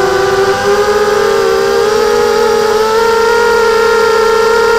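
BadBird BB4 250-size racing quadcopter's brushless motors and propellers whining in flight: a steady whine of several tones together that rises slightly in pitch about two seconds in.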